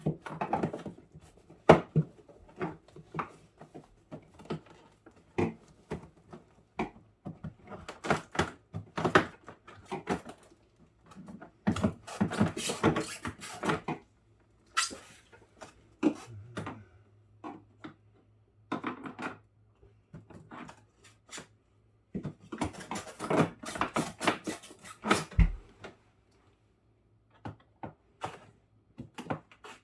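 Irregular clicks, knocks and bursts of rattling and scraping as the plastic interior parts of a Samsung Zipel refrigerator's fridge compartment are worked loose and taken apart by hand.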